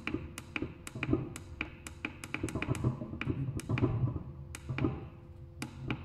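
Rapid clicking of the push button on a Greisinger GMK 210 moisture meter, about four clicks a second, as it is pressed over and over to step through its material programs.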